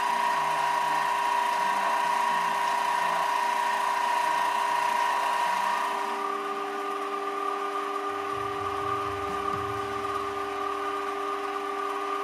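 Pro-Craft variable-speed mini lathe running with a steady motor whine, the spindle turning at about 750 to 780 rpm. About six seconds in, the whine steps slightly higher in pitch and gets a little quieter.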